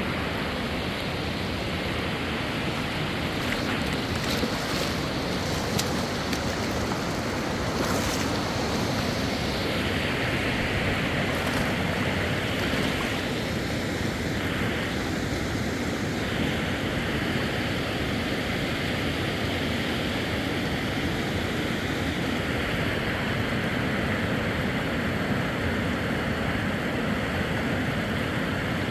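A mountain river rushing steadily: an even, unbroken wash of water noise, with a few faint clicks in the first half.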